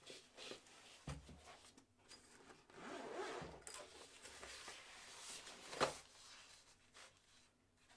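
Zipper on a soft tool bag being pulled open, faint, with a couple of short knocks as the contents are handled.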